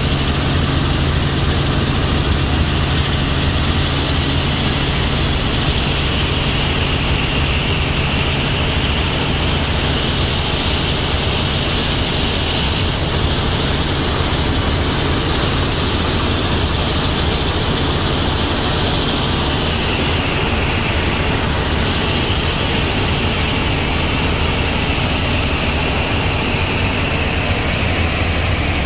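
Cabin noise of a Robinson R44 helicopter in steady flight: the piston engine and rotor make an unbroken low drone under a constant rushing noise, heard from inside the cabin.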